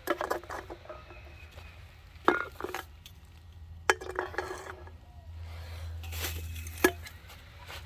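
Cans being stood back up in a row, clinking and knocking against each other in a handful of sharp, separate clinks.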